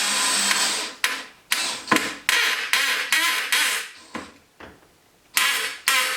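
Electric drill-driver driving a screw: a steady run, then a quick string of short trigger bursts as the screw is run home, a pause, and one more short burst near the end.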